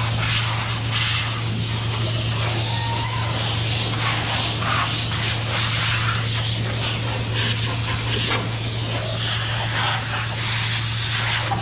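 Compressed-air blow gun hissing steadily as it blows across a truck panel, drying off wax and grease remover during paint prep, over a steady low hum.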